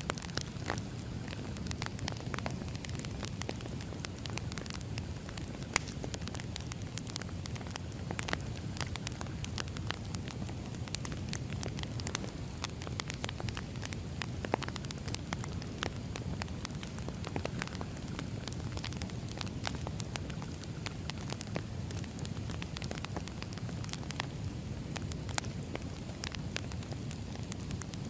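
Wood fire crackling: a steady low rumble of burning logs with scattered sharp pops and snaps throughout.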